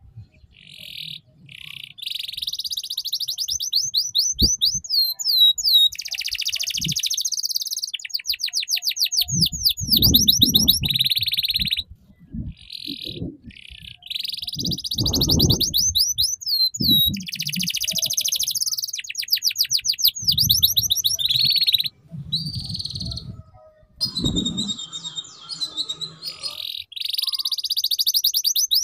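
Domestic canary singing a long run of fast repeated notes and rapid trills, phrase after phrase with only brief breaks. This is the chirpy 'ngeriwik' style of song played as a master song for young canaries to learn from.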